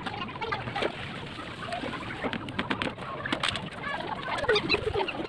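Short clicks and knocks of one-handed quick-release bar clamps being squeezed and set against a wooden chair frame. A bird coos with low, falling calls about four to five seconds in.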